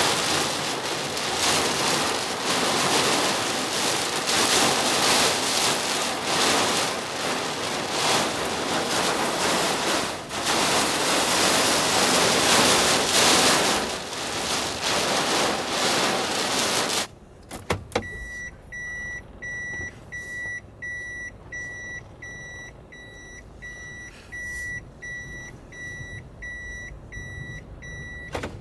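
Heavy rain pouring onto a Toyota Hiace van's roof and windshield, heard from inside the cabin. About two-thirds of the way through it drops away, leaving a quiet cabin with the van's electronic warning chime beeping about twice a second.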